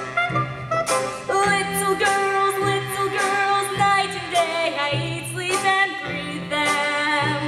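A woman singing a show tune solo, with vibrato, over an instrumental accompaniment whose bass notes come about once a second.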